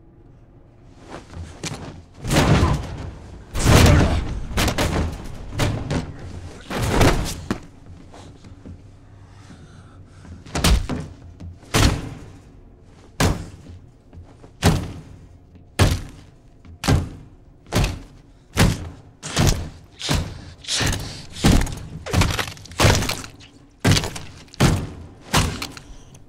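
Film sound effects of a man stomping another man's head against an elevator floor: heavy crunching thuds. First several irregular blows in a struggle, then a steady run of separate stomps that come faster and faster, from about one a second to nearly two a second near the end.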